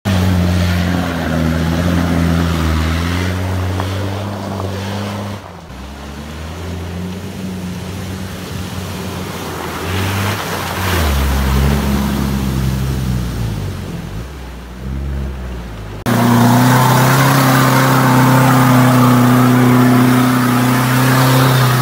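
Mitsubishi Pajero turbodiesel engine revving up and down as the 4x4 drives through deep mud, then through a shallow river with water splashing around it. About sixteen seconds in the sound cuts abruptly to a louder engine held at steady revs on another vehicle stuck in mud.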